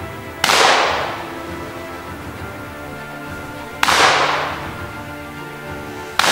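Three sharp bangs, each trailing off over about a second, over background music.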